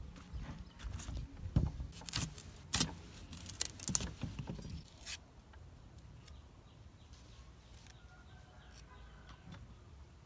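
Vegetables handled in a perforated stainless steel colander: a run of sharp clicks and light metallic rattles for about five seconds. After that only faint ticks of a knife cutting small green eggplants on a wooden board.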